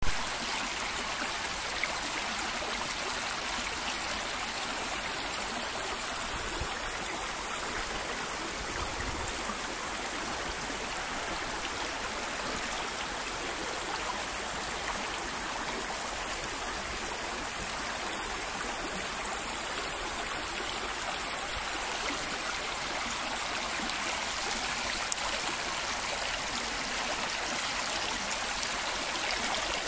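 Small mountain brook trickling and splashing over rocks, a steady, even rush of running water.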